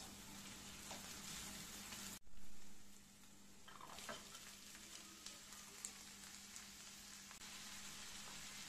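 Onions frying quietly in oil in a nonstick pan while a silicone spatula stirs in tomato paste. About two seconds in the sound cuts and there is a brief louder swell, then diced chard stalks are tipped into the pan with a few light knocks and the frying hiss carries on.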